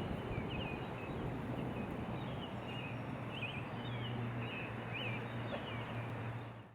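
Boat motor running with a steady low hum under a wash of steady noise, while birds give short high chirps again and again. The sound fades out abruptly at the end.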